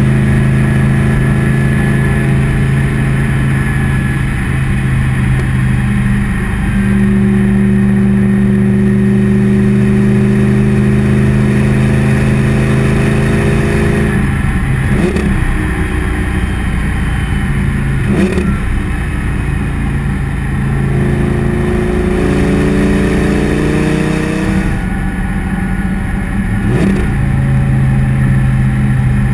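Lamborghini Gallardo LP 570-4 Superleggera's V10 exhaust, heard right at the tailpipe, running steadily as the car drives along. A few short cracks come from about halfway on, and the pitch rises shortly before the last one as the engine pulls harder.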